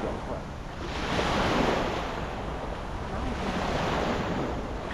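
Wind buffeting the microphone over the wash of water, swelling twice as a rushing noise.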